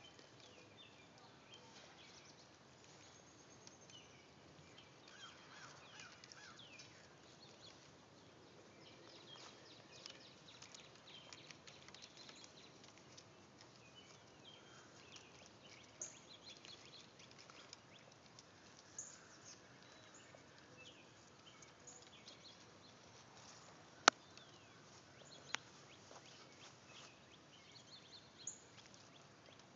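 Faint outdoor ambience with scattered short, high bird chirps, and two sharp clicks about three-quarters of the way through, the first much the loudest.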